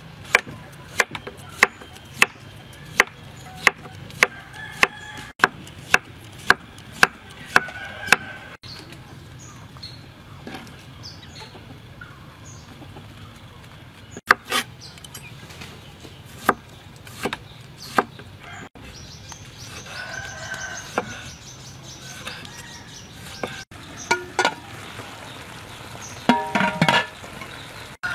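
Kitchen knife chopping a cucumber on a wooden cutting board: a steady run of sharp knocks, about two a second, for the first eight seconds, then scattered single chops. A brief loud clatter comes near the end.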